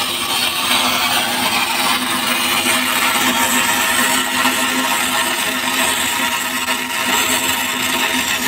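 Shielded metal arc welding with an E6010 electrode: the arc crackles and hisses steadily and without a break while the root pass runs uphill on the pipe.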